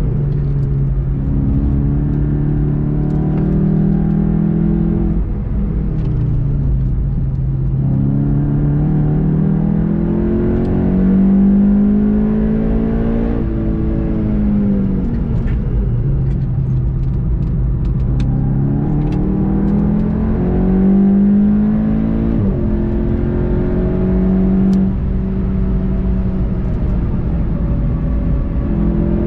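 Onboard sound of a VW Golf 7 GTI TCR's turbocharged four-cylinder engine pulling hard on track. Its pitch climbs under acceleration and falls back several times, about 5, 13 and 22 seconds in, over steady road and tyre noise.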